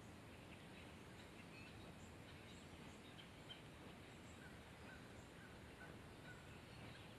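Near silence: faint lakeside ambience with a few faint, short bird chirps, a row of about five in the second half.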